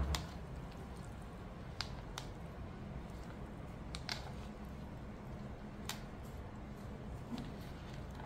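A spoon stirring and tossing a wet, chunky food mix in a plastic takeaway bowl. Soft squishing runs throughout, broken by about half a dozen short clicks of the spoon against the bowl.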